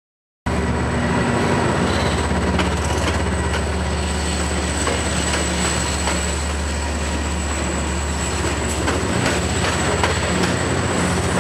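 Amtrak California F59PHI diesel locomotive and its bilevel passenger cars passing at speed. The locomotive's diesel engine gives a steady low drone, with a steady high whine above it and light wheel clicks over the rail joints. The sound begins abruptly about half a second in.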